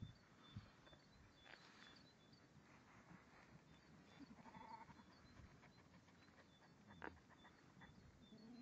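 A sheep bleating faintly once, about halfway through, over repeated high chirps of small birds.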